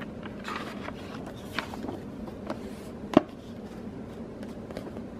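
Paperback picture book being handled and opened to its first pages, paper rustling softly, with one sharp click of the cover or page about three seconds in.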